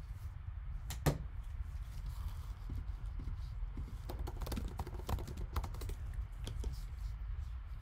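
Typing on a computer keyboard: scattered, irregular key clicks, with one sharper click about a second in, over a low steady hum.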